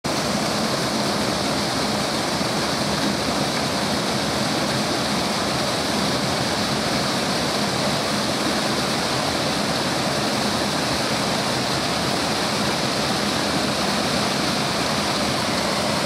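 Mountain stream pouring over rock in a small waterfall into a pool: a steady rush of white water.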